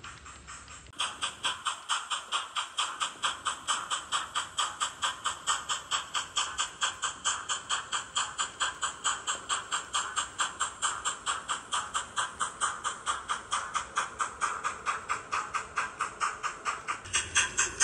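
Sound-fitted HO-scale model of an NSWGR 38 class steam locomotive, its LokSound 5 decoder playing steam exhaust chuffs through the on-board speaker at a steady beat of about three to four a second. The chuffing gets suddenly louder about a second in.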